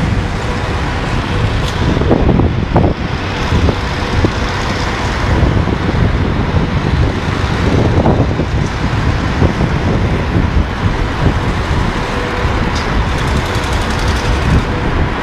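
Wind buffeting a phone's microphone: a loud, gusty rumble, with a faint steady hum underneath.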